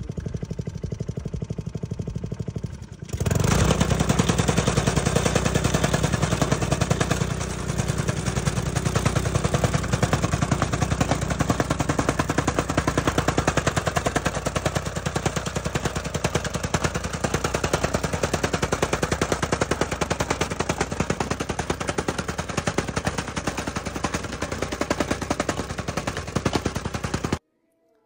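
Gasoline tamping rammer (jumping jack) running at low speed for the first few seconds, then throttled up, pounding soil in a footing trench with a rapid, steady hammering beat. It cuts off abruptly just before the end.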